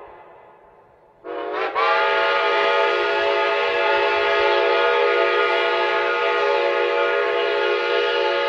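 Shay steam locomotive's chime whistle: a fading echo of a short toot, then one long blast of several notes sounding together, starting about a second in with a brief break just after it begins, and held steady and loud.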